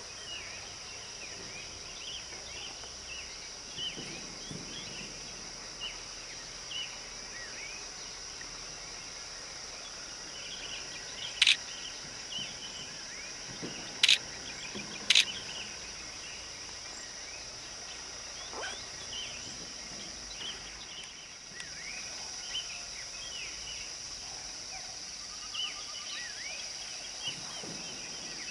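Hillside forest ambience: a steady high insect drone with frequent short bird chirps. Three loud, sharp, very short sounds come near the middle, the last two about a second apart.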